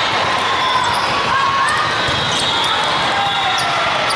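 Volleyballs being hit and bouncing on the court amid the steady din of a busy tournament hall, with a murmur of voices.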